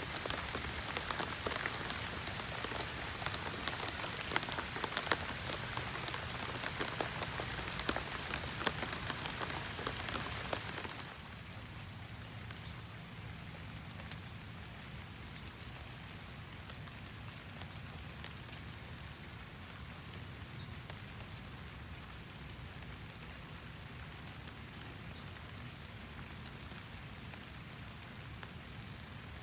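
Steady rain with dense pattering drops, which drops abruptly to a much quieter, softer hiss about a third of the way in. A faint, high pulsing tone runs through the quieter part.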